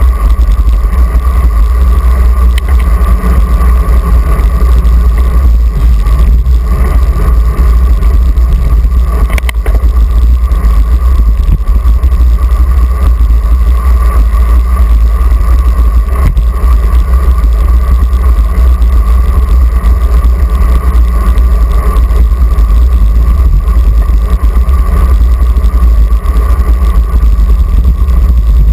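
Wind buffeting the microphone of a handlebar-mounted action camera on a moving bicycle: a loud, steady low rumble with a steady mid-pitched tone above it.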